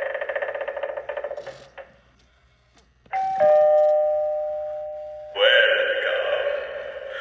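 Gemmy eyeball Halloween doorbell prop playing through its small speaker. An electronic ding-dong chime sounds about three seconds in and rings out for about two seconds. Then a spooky sound effect starts abruptly. Before the chime, an earlier pulsing effect fades out in the first couple of seconds.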